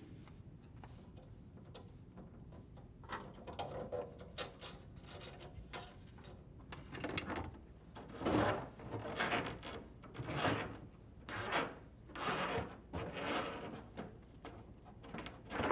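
Corrugated plastic dishwasher drain hose being fed through the hole in the sink cabinet wall, rubbing and scraping against the edge of the hole in a series of pulls, about one a second, that grow louder after the first few seconds.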